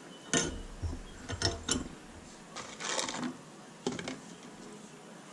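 Metal clicks and clinks from a combination wrench on the bolt of a valve spring compressor fitted to an LS cylinder head, about half a dozen sharp taps with a longer rattling clatter about three seconds in.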